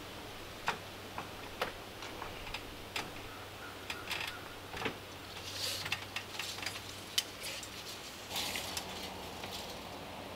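Irregular light knocks and clicks of footsteps and handling on an aluminium stepladder as a man climbs it with a hammer, with a couple of brief rustles.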